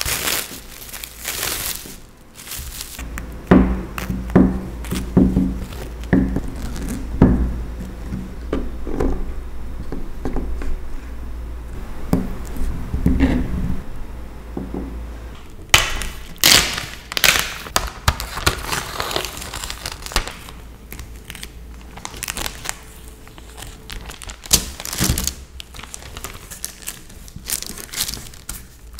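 Cling film crinkling as it is peeled off a set log of caramel cocoa almonds, then a knife slicing the log on a silicone baking mat in a series of knocks lasting about ten seconds. After that, baking paper crinkles and rustles as hands press crumbly cookie dough together on it.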